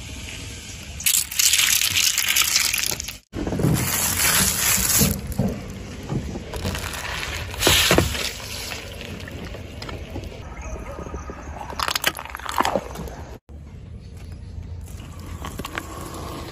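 A car tyre rolling over plastic cups and bottles of coloured liquid, crushing them: crackling plastic, bursts and splashes of spilling liquid, over a low rumble of the tyre on asphalt. Several short clips are cut together, with the loudest bursts about a second in, around four to five seconds, near eight seconds and near twelve seconds.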